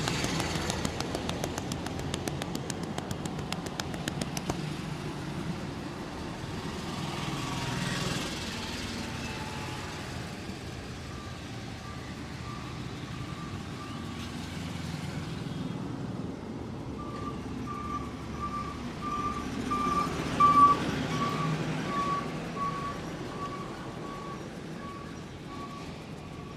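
Street traffic: a vehicle engine rumbling while a reversing alarm beeps at an even pace, starting about a third of the way in, pausing briefly, then carrying on, with traffic swelling past about three-quarters of the way through.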